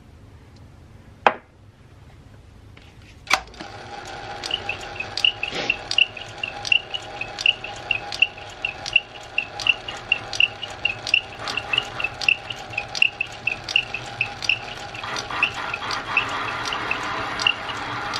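Small metal lathe switched on with a sharp click about three seconds in, then running with a steady hum and a regular ticking of about two or three a second. From about fifteen seconds in, a rising rasp joins as the cutting tool works the drill bit's Morse taper shank down to a straight half-inch section.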